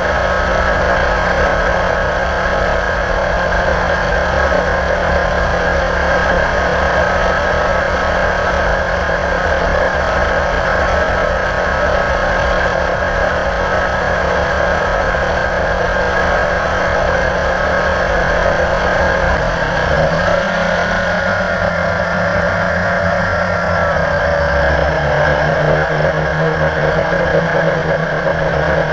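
Blade 350 QX quadcopter's four brushless motors and propellers buzzing steadily, close to the on-board camera. The motor tones shift in pitch about twenty seconds in.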